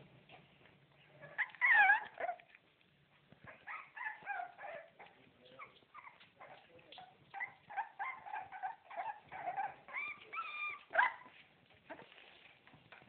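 Four-week-old Staffordshire puppies whimpering and squeaking in a string of short, high whines. The loudest call comes about two seconds in.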